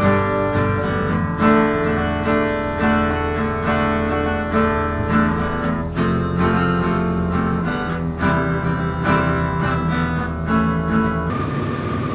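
Background music of strummed acoustic guitar with a steady rhythm. Near the end it cuts off abruptly, giving way to a steady mechanical hum with a faint whine.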